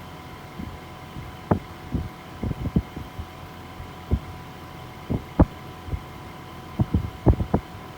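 Fujitsu ductless mini split air conditioner running with a steady hum and a faint steady whine, broken by irregular short low thumps.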